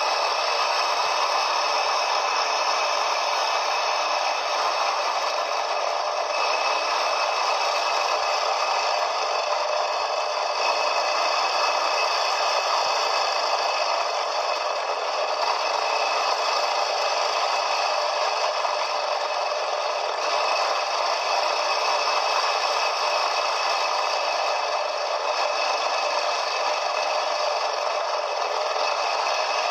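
Quad bike (ATV) running steadily, with a constant rattle and clatter of the machine.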